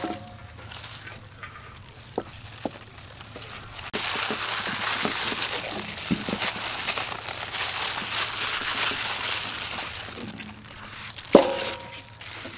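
Plastic-gloved hand rubbing flour over a whole raw chicken in a metal bowl: a dense rustling and crinkling of glove and powder from about four seconds in until about ten seconds, with a few light clicks before it. Near the end there is a single sharp knock with a short ring.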